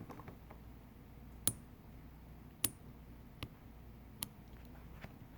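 A few faint, sharp clicks, about five spaced roughly a second apart: a fingernail prying and flicking up the tiny metal NFC spring contacts on a tablet's circuit board.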